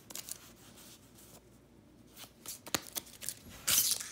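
Pokémon trading cards being handled and slid against one another, with scattered light clicks and scrapes and a brief louder rustle near the end.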